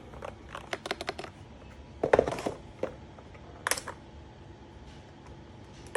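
Keys on an Akko 5108S mechanical keyboard being pressed: a quick run of clicks, then a louder clack about two seconds in and a few single key presses.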